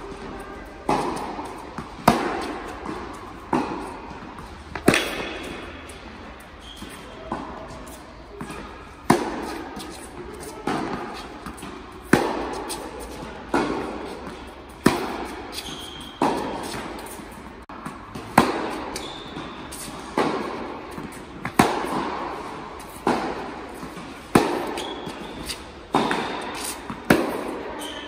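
Tennis ball being hit back and forth in a steady baseline rally: a sharp racket strike about every one and a half seconds, alternating louder and softer, each ringing out in the echoing indoor hall.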